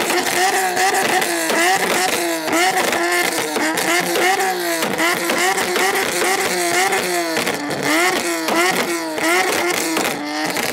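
Two V6-engined Nissan-platform cars, a Nissan 370Z and an Infiniti G coupe, revved hard side by side in a rev battle. Their pitch rises and falls over and over, about twice a second.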